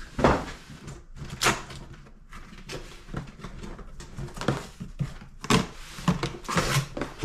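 Packaging being handled while a PS5 console is unboxed: irregular rustling and scraping of cardboard and plastic, with a few sharper knocks.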